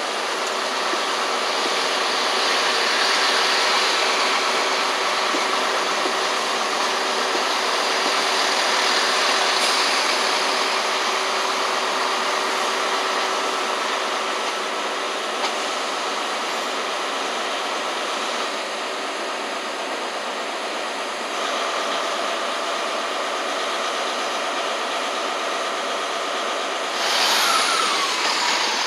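Chiltern Railways diesel multiple unit running under power as it pulls out of the station, with a steady engine drone and fixed whining tones. About two seconds before the end the sound grows louder and a whine falls in pitch.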